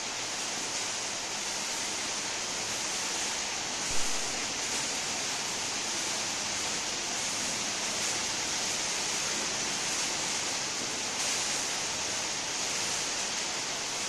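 Stage waterfall effect machine running with a steady hiss. A single knock about four seconds in is the loudest moment.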